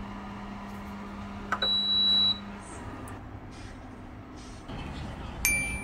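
Two electronic beeps over a low steady hum. A high single-tone beep comes about one and a half seconds in and lasts under a second; the hum stops soon after. A lower, shorter beep follows near the end.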